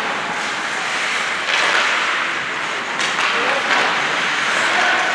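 Ice hockey play on a rink: skates scraping and carving on the ice as a steady hiss, with a few sharp knocks from sticks, puck and boards.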